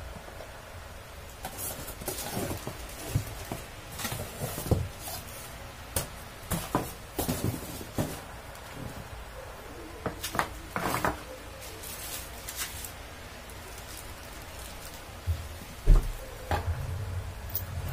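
Plastic wrapping crinkling and rustling as the parts of a new electric fan are unwrapped and handled, with scattered light clicks and knocks. One heavier thud comes near the end.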